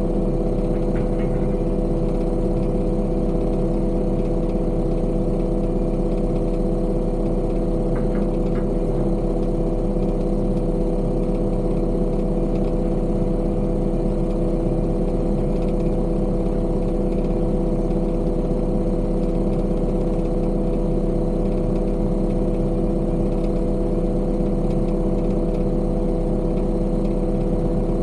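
Heavy construction machine's engine running steadily at a constant speed, an even drone with no change in pitch.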